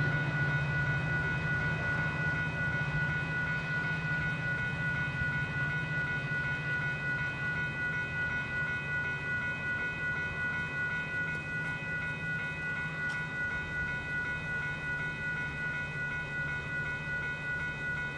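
Railroad grade-crossing warning bell ringing steadily over a low, constant rumble, heard from inside a car waiting at the crossing.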